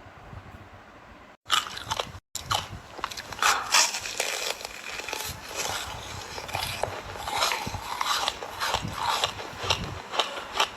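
Ice being bitten and chewed: a dense run of sharp, crisp cracks and crunches that starts about a second and a half in, after a brief stretch of low, steady background noise.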